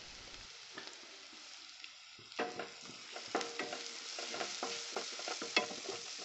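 Sliced onions sizzling in oil in a non-stick kadai, with turmeric and salt just added for sautéing. About two and a half seconds in, a spatula starts stirring, with repeated scraping and knocking against the pan over the sizzle.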